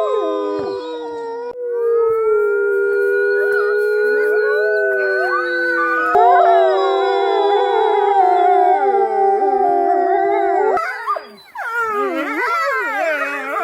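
Wolf pack howling in chorus: several long, overlapping howls at different pitches, some held steady and some sliding up or down. About eleven seconds in the chorus breaks off briefly, then resumes as quicker, wavering howls.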